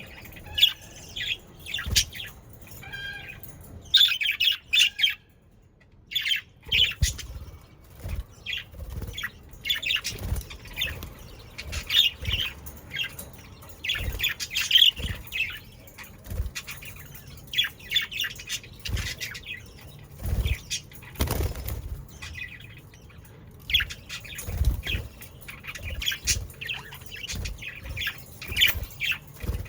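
A flock of budgerigars chattering and chirping in short clusters, with wing flutters and small thumps in between.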